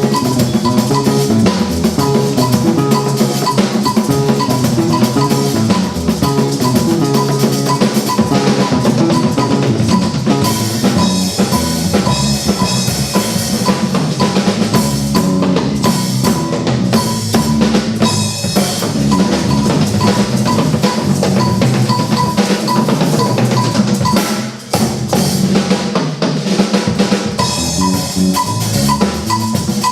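Music driven by a busy drum kit, with bass drum and snare strokes in a dense, steady beat, dropping out briefly about three quarters of the way through.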